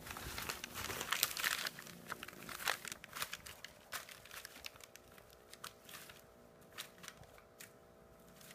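Brown kraft packing paper crinkling and crackling as a kitten moves about on it. The crinkling is dense for the first few seconds, then thins to separate crackles.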